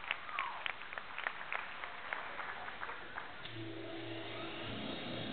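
Scattered audience clapping that thins out and dies away, then a low steady hum that sets in about three and a half seconds in.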